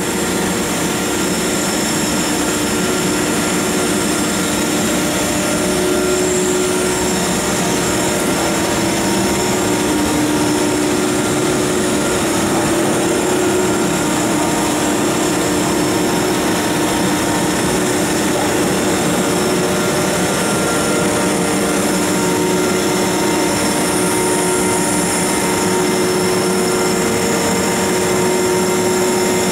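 Large PE pipe extrusion line running: a steady, loud machinery drone from the extruder drive, blowers and cabinet fans, with several steady hum tones over it.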